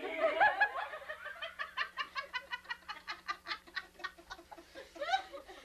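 Rapid, even run of short clucking sounds like a hen's, several a second, lasting about four seconds. It is framed by laughter at the start and near the end.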